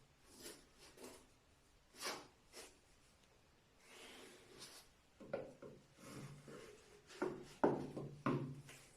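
Footsteps in clogs: irregular knocks and scuffs, a few scattered ones at first, then louder and closer together in the last few seconds.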